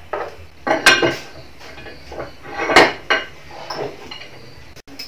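Metal parts of a homemade manual pipe bender, the steel bending lever among them, being handled and set down on a workbench: a run of clinks and knocks, the two loudest about a second and about three seconds in.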